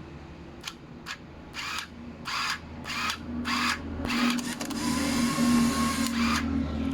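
A small motor whirring in six short bursts about half a second apart, then running steadily for about two seconds with a steady hum before cutting off.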